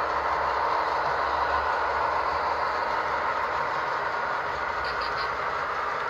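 HO scale model freight train rolling past on the track, a steady whir and rumble of wheels and motor, with a quick run of light clicks about five seconds in.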